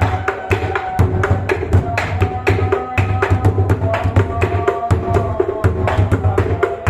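Bedug, the large Indonesian mosque drum, beaten in a fast continuous rhythm of several strokes a second: deep booms mixed with sharp wooden knocks.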